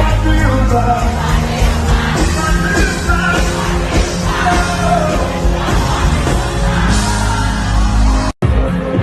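Live Afrobeats concert music heard loud through the venue's sound system: singing over a heavy bass line, with crowd voices yelling along. The sound cuts out for an instant near the end.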